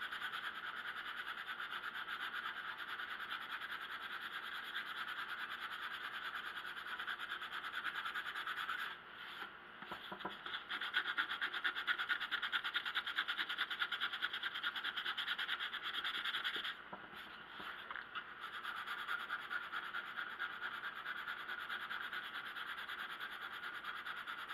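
Hand sanding with 220-grit sandpaper, rubbing wood filler smooth on a wooden radio cabinet's veneer: a steady rapid scratchy rasp of back-and-forth strokes, pausing briefly twice, about nine and about seventeen seconds in.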